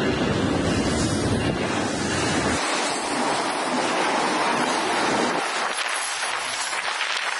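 Double-stack container freight train passing close by, a steady rushing noise of wheels on rail. Wind rumbles on the microphone for the first two or three seconds, then mostly stops.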